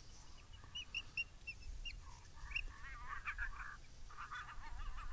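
Animal calls: a run of short, high chirps, then wavering, yelping calls about halfway through and again near the end.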